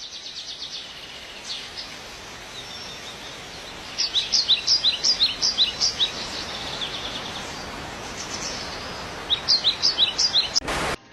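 A small bird chirping in two quick runs of short, sharp, falling notes, about five a second, over a steady rushing background noise. A brief loud burst of noise comes just before the end.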